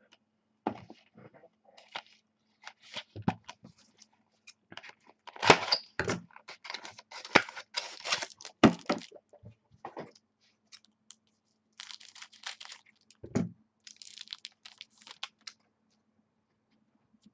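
Trading-card pack wrappers being torn open and crinkled, with cards handled and shuffled: a run of irregular rips, crackles and clicks, busiest and loudest in the middle.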